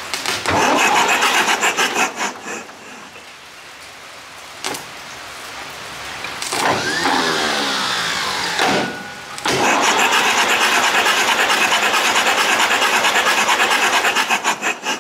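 Starter motor cranking the SAME Centauro 60's diesel engine in three goes: a short burst, a second shorter one, and a long steady crank with a fast even pulse. The crank is done with one injector line bent off so the injector's spray can be watched from each port of the injection pump, and the engine turns over without running.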